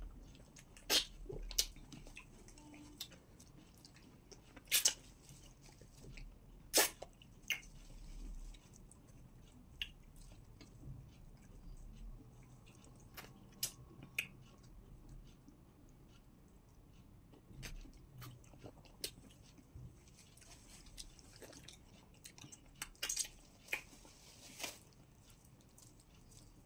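Two people eating pounded yam and okra soup by hand: scattered short mouth smacks and clicks of chewing at irregular intervals, with quiet stretches between.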